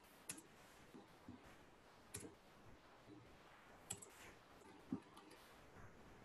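Scattered computer mouse clicks and keyboard key presses, a handful of sharp separate clicks with the loudest about five seconds in, over faint room hiss.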